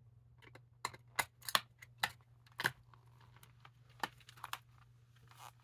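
Irregular sharp clicks and taps of small hard objects being handled: AA batteries and the Furby's plastic battery compartment being fitted, about a dozen light knocks spread unevenly.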